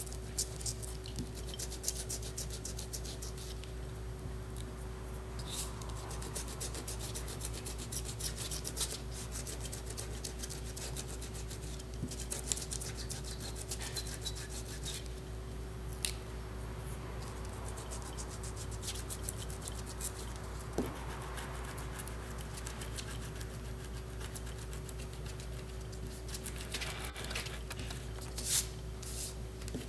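Rubber cement pickup rubbed back and forth over gouache-painted paper, lifting off the dried rubber cement resist: soft, uneven rubbing and scratching with occasional light scrapes and taps. A steady electrical hum sits underneath.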